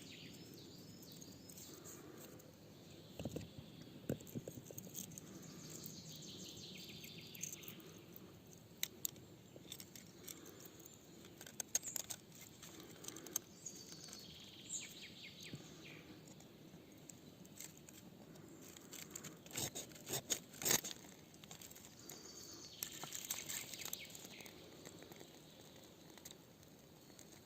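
Birds singing in woodland, with scattered sharp clicks and knocks, the loudest a cluster about twenty seconds in.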